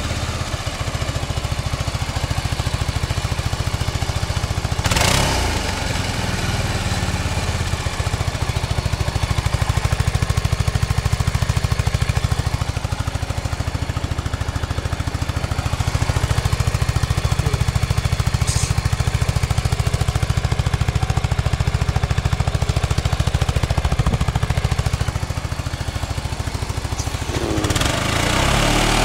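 Suzuki Burgman 400 scooter's single-cylinder engine running steadily at high revs during a burnout, with the rear tyre spinning on the concrete. It is a little louder in the middle, and there is one sharp click about five seconds in.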